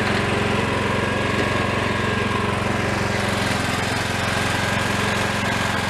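Cub Cadet riding lawn mower's engine running at a steady speed as the mower is driven across the lawn.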